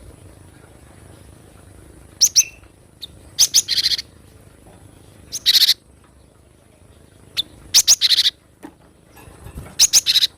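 Cinereous tit (gelatik batu) calling in short bursts of sharp, high chirps and quick rattled notes, one burst every second or two.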